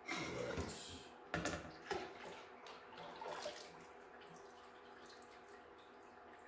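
Lye solution poured from a glass measuring pitcher into a stainless steel pot of soap-making oils: an uneven splashing trickle for about three seconds, with two sharp knocks in the middle, then it falls away to faint room tone.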